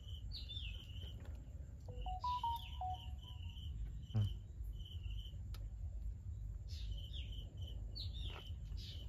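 A bird chirping over and over, short high calls several times a second, some sliding down in pitch, over a steady low rumble. About two seconds in, a brief run of a few musical tones plays.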